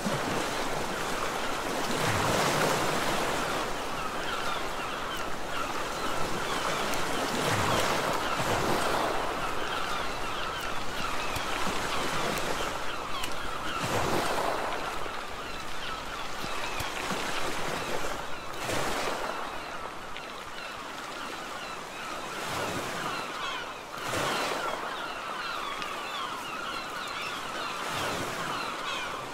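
Sea waves washing against a rocky shore, swelling and falling back every few seconds.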